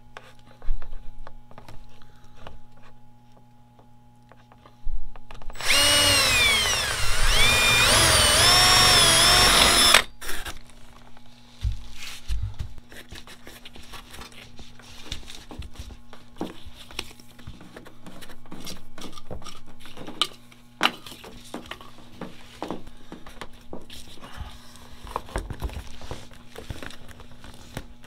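Cordless drill with a long bit boring through a wooden stud for about four seconds, its motor pitch sagging as the bit bites and picking up again. After it stops come quieter clicks and rustles as the power cord is fed through the hole.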